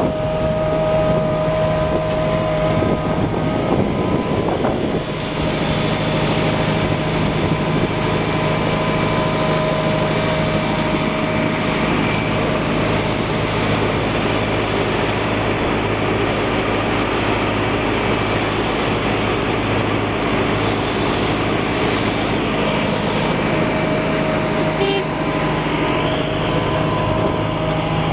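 Fendt tractor's diesel engine running steadily under load while pulling a reversible plough through stubble, with a constant whine over the engine hum.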